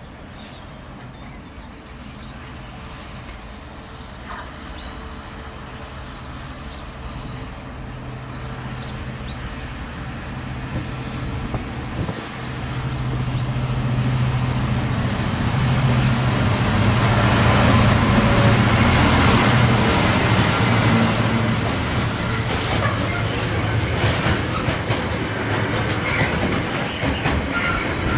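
Birds chirping while a Class 66 diesel locomotive approaches hauling a container train. Its low engine hum grows louder and is loudest as it passes about two thirds of the way in. The container wagons then roll by with their wheels clicking over the rails.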